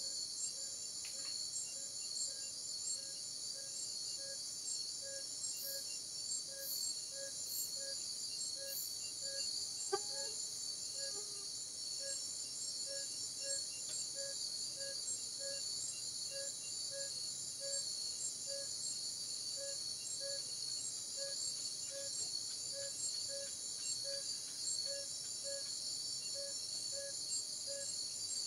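Night chorus of crickets and other insects, a steady high trill, with a lower note repeating evenly about once a second. A single sharp click about ten seconds in.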